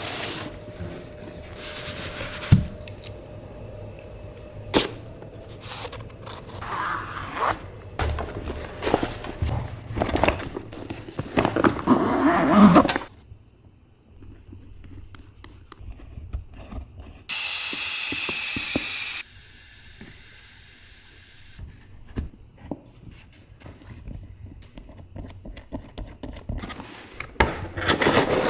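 Close-up handling sounds: scraping, rubbing and sharp clicks and knocks, growing louder before dropping away, then a steady hiss for about two seconds, then more clicks and rubbing near the end.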